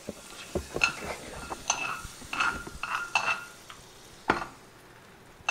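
A metal knife stirring and scraping in a frying pan, with a quick run of light clinks that ring briefly, then one louder knock about four seconds in.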